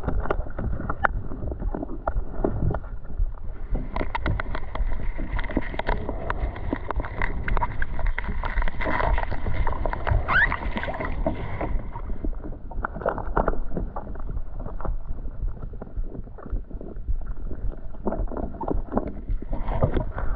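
Water sloshing and splashing around a person wading deep into a lake, a steady watery rumble with many small knocks.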